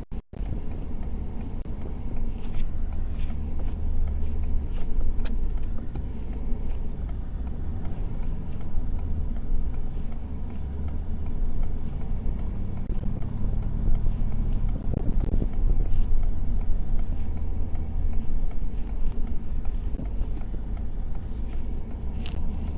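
Heavy-duty pickup truck driving while plowing snow, heard from inside the cab: a steady low rumble of engine and road noise that swells and eases, with occasional light clicks and knocks.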